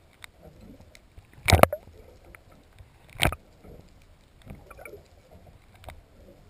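Muffled underwater sound picked up through a GoPro's waterproof housing: a low, even water murmur broken by two loud, sharp knocks about two seconds apart, and a fainter click near the end.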